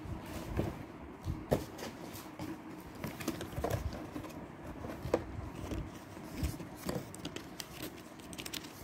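Cardboard cosmetic boxes and a paper card being handled: scattered light taps, knocks and rustles of packaging.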